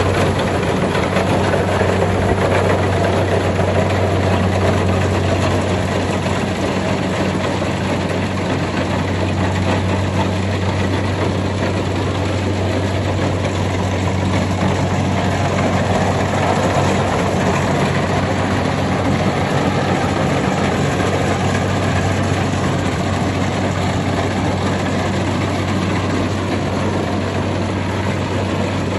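Kubota rice combine harvester's diesel engine running steadily, a continuous low drone.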